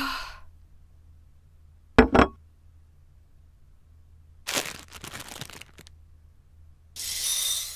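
Two sharp knocks close together, then a stretch of crackling rustle like a plastic packet being picked up and handled, and a short hiss near the end.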